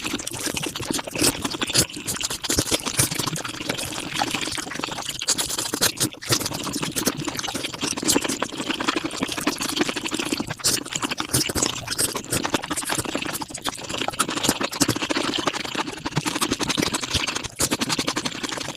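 Close-up mukbang eating sounds sped up five times: chewing, smacking and slurping packed into a dense, unbroken run of rapid clicks and smacks.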